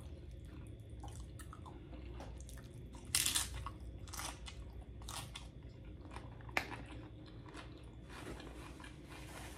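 Biting into a loaded-nacho tortilla chip about three seconds in, followed by crunchy chewing, with one sharp crunch a little after halfway.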